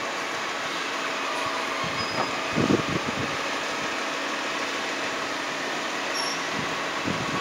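CCC Labrie Automizer side-loader garbage truck running at the curb, its hydraulics making a steady whine as the automated arm grips a wheeled cart and lifts it toward the hopper. A thump comes about two and a half seconds in.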